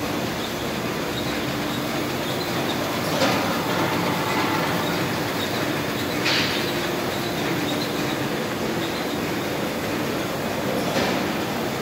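Muller Martini Ventura Connect book-sewing line with its automatic loading system running: a steady mechanical clatter and hum. Three short, sharp bursts stand out over it, a few seconds apart.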